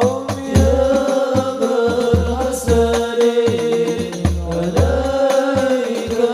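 A banjari rebana frame-drum ensemble playing, with deep bass drum strokes repeating under a singer's long, held, ornamented melodic lines in devotional sholawat chanting.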